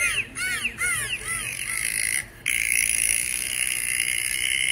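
An animal calling a quick series of short rising-and-falling notes, about three a second, fading out after a second or two. Then, after a brief break, a steady high-pitched whine.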